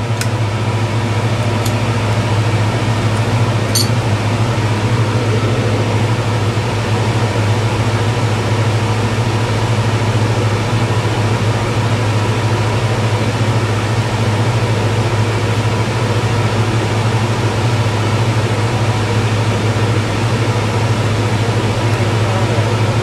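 Blackstone skate sharpening machine running steadily, its motor and spinning grinding wheel giving a constant low hum with a even whirring noise over it.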